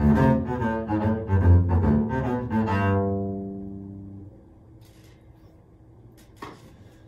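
Double bass played with the bow: a fast run of short, detached notes that ends about three seconds in on a held note, which rings and dies away about a second later. After that only faint room tone, with one light knock near the end.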